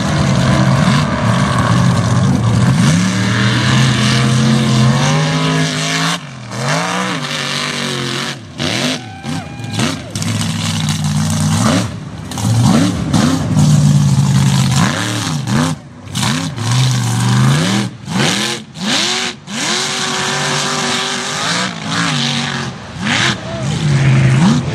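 Mega truck's engine revved hard over and over while it is driven through the mud, its pitch climbing and falling repeatedly, with short breaks between the revs.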